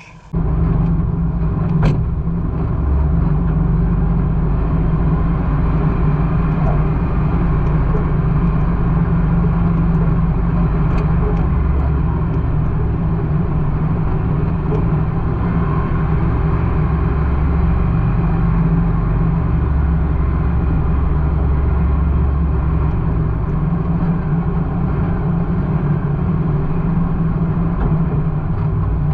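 A vehicle driving: a loud, steady low drone of engine and road noise, its pitch shifting slightly now and then.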